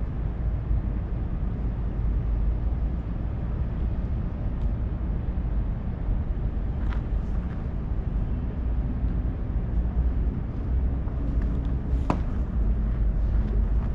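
Steady low rumbling outdoor noise, like wind buffeting the microphone, with one sharp crack about twelve seconds in and a fainter click near seven seconds.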